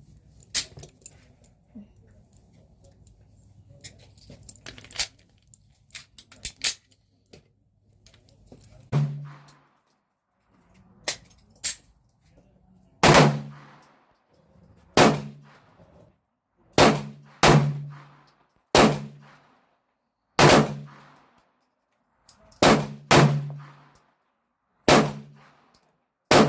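Gunshots at a shooting range, fired singly at uneven intervals. Faint clicks and distant pops come first, then about a dozen sharp, loud shots in the second half, each with a brief ringing tail.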